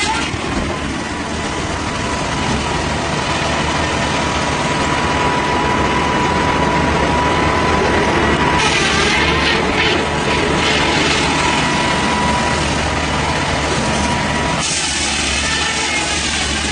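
A heavy engine running steadily, with a sustained mechanical hum. Its character changes abruptly twice, about halfway through and again near the end.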